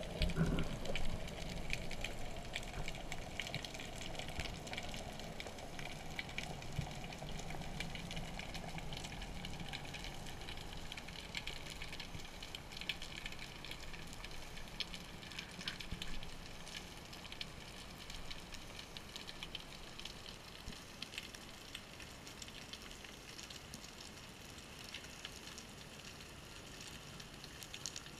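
Underwater ambience heard from a descending diver: a steady crackle of countless tiny clicks, typical of snapping shrimp on a rocky reef. A low rush of water is louder in the first several seconds and fades as the descent slows.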